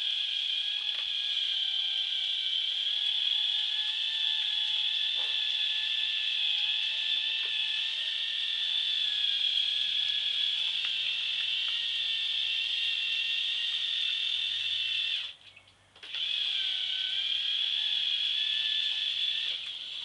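Two small electric motors of a K'nex paddle-wheel boat running with a steady high whine through their plastic gearing. The whine cuts out for under a second about fifteen seconds in, then comes back, dipping slightly in pitch before it settles.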